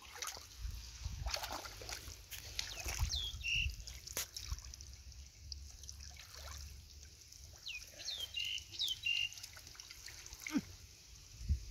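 Hands sloshing and splashing irregularly in shallow muddy water while groping in the mud for fish. A few short high chirps come around three seconds in and again around eight to nine seconds.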